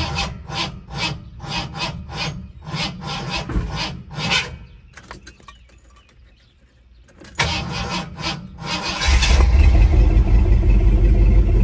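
A bullnose Ford F-150's 351 Windsor V8 being cranked by the starter, about three strokes a second, for about four and a half seconds without firing. After a pause it is cranked again and catches about nine seconds in, then runs loud and steady. This is a hard start that a new ground cable has not cured.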